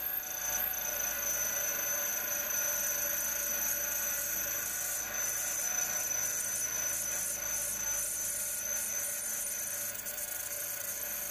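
Milling machine spindle running with a twist drill cutting through a bearing flange, drilling the bolt holes on a pitch circle; a steady machine whine with a high tone over it.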